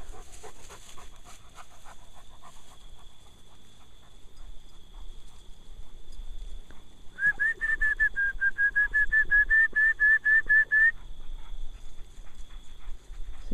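A dog panting close to the microphone in the first few seconds. Later comes a rapid run of about twenty high notes, all at one pitch, some five a second, lasting nearly four seconds, over a faint steady high tone.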